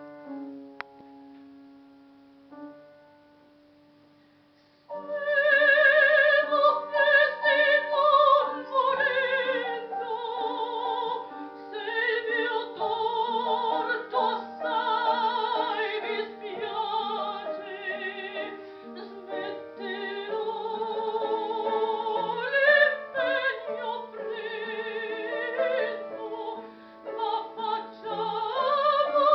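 A piano plays softly, a held chord dying away. About five seconds in, a soprano voice enters, singing operatically with a wide vibrato over the piano accompaniment.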